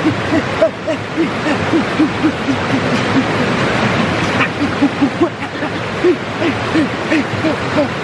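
Stream water rushing steadily over rocks and through a channel, with a quick run of short pitched sounds, about four a second, over it.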